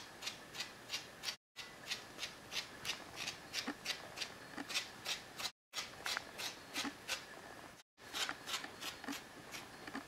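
Rapid rasping strokes of a hand-stripping tool drawn through a Border Terrier's harsh wiry coat, about three strokes a second, with the sound cutting out briefly three times.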